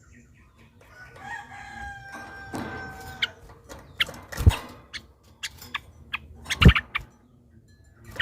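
A rooster crows once, a drawn-out, steady call lasting about two seconds, mixed with the short, sharp chattering calls of yellow-vented bulbuls. The loudest bulbul notes come twice, in the second half.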